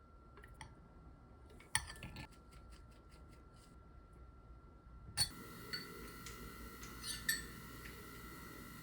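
Kitchen utensils and dishes clinking and knocking during food preparation: a short cluster of clatter about two seconds in, a sharper knock near the middle, then a few scattered light clinks, over a faint steady hum.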